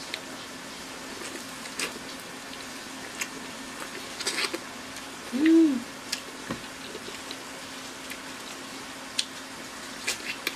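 Close-miked eating of corn on the cob: scattered wet mouth clicks and chewing as kernels are bitten off the cob. About five and a half seconds in comes one short hummed "mm" that rises and falls, the loudest sound. A faint steady hum runs underneath.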